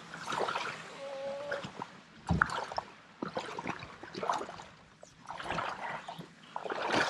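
Water splashing and trickling in uneven bursts around a small boat being pushed through shallow water, with a sharp knock about two and a half seconds in.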